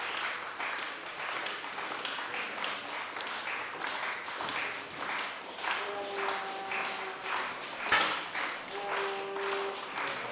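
Spectators clapping in a steady rhythm, about two claps a second, with two held musical notes sounding near the end. A single sharp crack stands out about eight seconds in.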